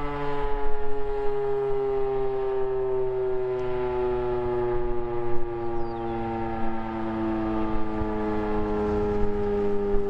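Federal Signal Model 7 outdoor warning siren sounding its steady Alert signal: a sustained, loud tone whose pitch sags slowly downward.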